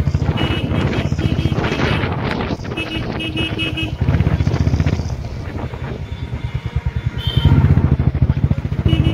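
A motor vehicle engine running with uneven throttle, likely a motorcycle, and a few short horn beeps.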